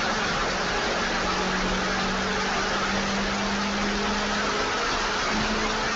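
Diesel pickup truck idling on a chassis dyno: a steady hum with an even hiss over it, the hum shifting slightly in pitch about a second in and again near the end.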